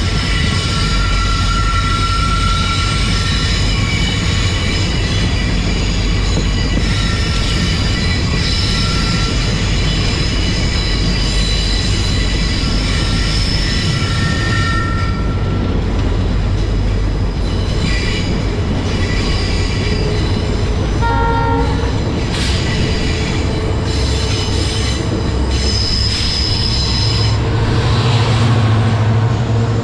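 Passenger train running along the track: a steady rumble with high wheel squeals that come and go. A short pitched tone sounds about two-thirds of the way through, and the low rumble grows louder near the end.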